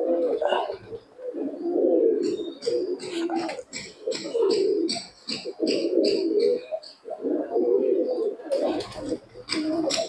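Domestic pigeons cooing, with low coos repeating in overlapping phrases of about a second each.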